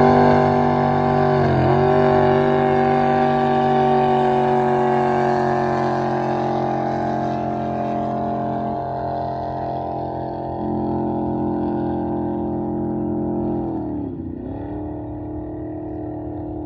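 Drag boat engine at full throttle as the boat launches and runs down the course. Its steady high note fades as the boat pulls away. The pitch dips briefly about a second and a half in, then drops again near the end, leaving a lower, quieter note.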